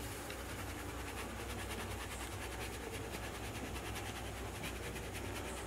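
Faint, steady scratchy rustling of ground rice flour being shaken through a plastic fine-mesh sieve onto a steel plate, with a low steady hum underneath.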